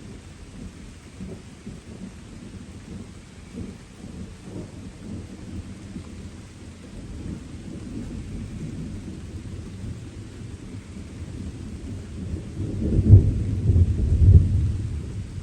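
Distant thunder rumbling low over a steady light rain, swelling to a louder peal near the end before fading back.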